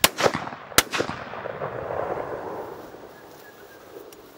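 Beretta 686 Silver Pigeon I over-under shotgun fired twice, the two shots under a second apart. The report echoes and dies away over the next couple of seconds.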